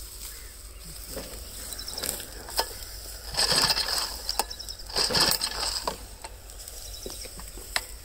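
Dry wheat stalks crunching and rustling in several bursts, with scattered crackles. The loudest bursts come about three and a half seconds in and again about five seconds in.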